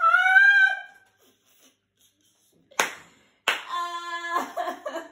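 Women laughing: a high-pitched squealing laugh that rises and falls, then a sharp hand clap about three seconds in, and another clap half a second later as a long, held high-pitched laughing cry begins.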